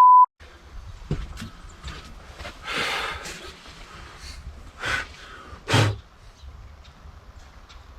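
A steady censor bleep cuts off just after the start. Then come a few short hissing, breath-like bursts of noise: a longer one about three seconds in, and two sharper ones around five and six seconds. Scattered light clicks and clanks of tools and handling run between them.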